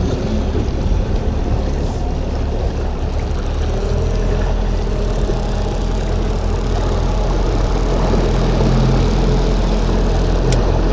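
Suzuki outboard motor running steadily, driving the boat along, with water churning in its wake.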